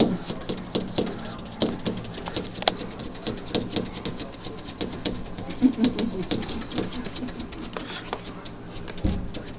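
Quick, irregular light taps and scratches on a sliding glass door pane, where a cat paws and claws at the glass against a bare toe pressed on the other side. There is a sharper click about two and a half seconds in.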